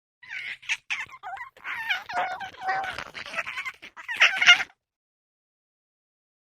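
Alien creature voice sound effect: a run of fast, garbled chattering syllables, with a louder burst near the end before it cuts off suddenly.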